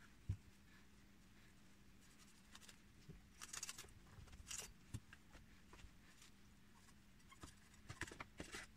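Faint scrapes and knocks of a knife cutting a pink salmon on a wooden cutting board, in clusters about three to five seconds in and again near the end.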